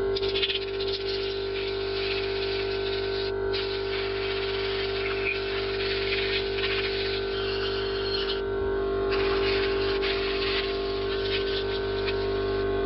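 An air compressor runs with a steady hum while a blow gun hisses in long blasts, pausing briefly twice. The air is blowing a white-spirit-cleaned hedge trimmer engine dry.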